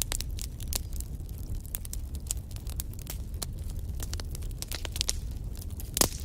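Fireplace fire crackling, with quick irregular snaps and pops over a steady low rumble of the flames, and one louder pop near the end.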